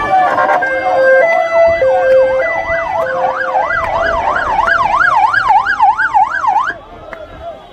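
Police car siren sounding a two-tone hi-lo pattern, then switching to a fast yelp of about four rising-and-falling sweeps a second, which cuts off suddenly near the end.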